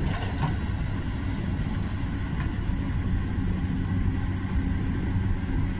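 Excavator's diesel engine running steadily as the machine works a dam slope, a constant low drone.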